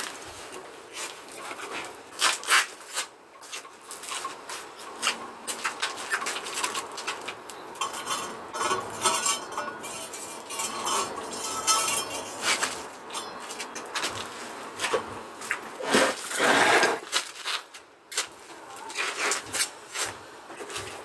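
Irregular metallic clinks, knocks and scraping from hand work on concrete blocks, coming in uneven clusters with a louder scraping stretch about two-thirds of the way in.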